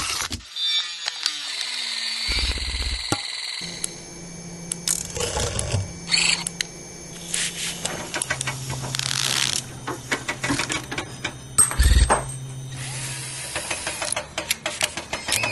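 A quick succession of workshop tool sounds: power-tool motors running with steady whines and hums that change pitch from one tool to the next, broken up by many sharp clicks, clanks and knocks, with a heavy thud about twelve seconds in.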